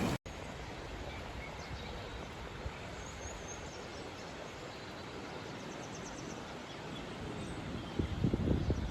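Steady rush of flowing river water, with a few faint bird chirps in the middle. Low gusts of wind buffet the microphone near the end.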